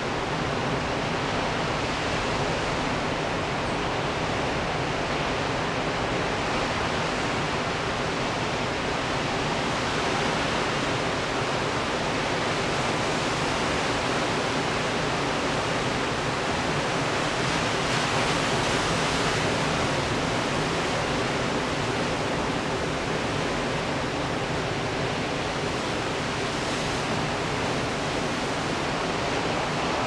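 Pacific surf breaking over a rocky shore: a continuous, even rush of wave noise with no separate crashes standing out, swelling a little just past the middle.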